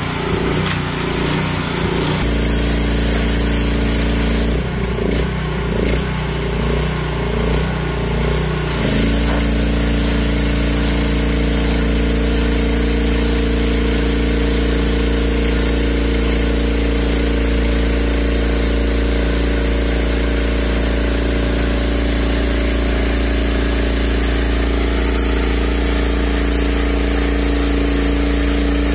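Petrol-engine pressure washer running, with the hiss of its spray jet on wet concrete.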